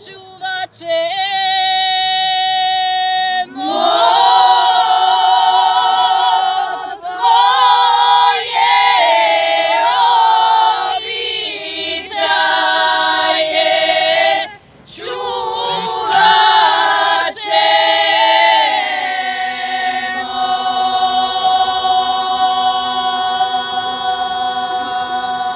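A group of women singing unaccompanied in a slow traditional folk style, holding long drawn-out notes with short breaks between phrases. The last note is held for several seconds near the end.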